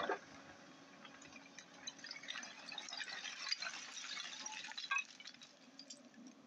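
Hyundai 210 excavator's bucket digging into a pile of broken slab rock: stones scrape, crackle and clatter against the steel bucket and each other, with a few louder knocks, over the faint steady hum of the machine's diesel engine.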